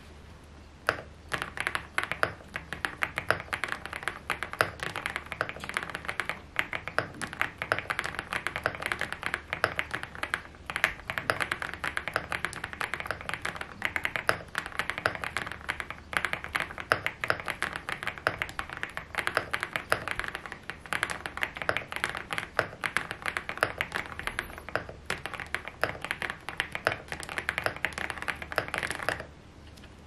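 Fast continuous typing on a GG75 mechanical keyboard with JWK Illusion switches and Aifei doubleshot SA-profile keycaps, modded with PE foam, two layers of tape and its silicone PCB dampening cut out: a dense run of keystrokes. The typing starts about a second in and stops about a second before the end.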